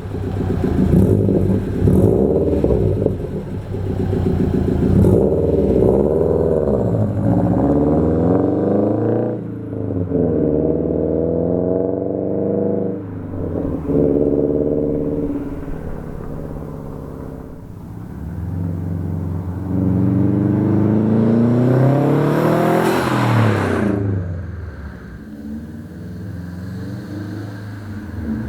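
2012 Subaru WRX's turbocharged flat-four through a muffler-delete catback exhaust, accelerating with the pitch climbing, dropping at the gear changes and climbing again. About 23 seconds in, the car passes close by, the sound swelling and then falling in pitch as it goes.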